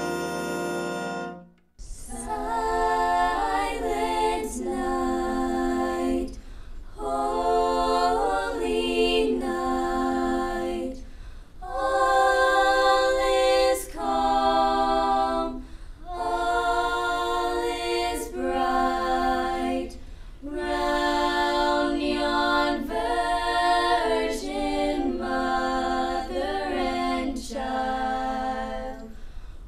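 A held instrumental chord stops about a second and a half in; then a choir sings a cappella in phrases of about two seconds, with short pauses between them.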